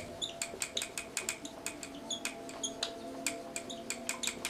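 Dry-erase marker squeaking and tapping on a whiteboard in quick, uneven strokes as words are written, over a faint steady hum.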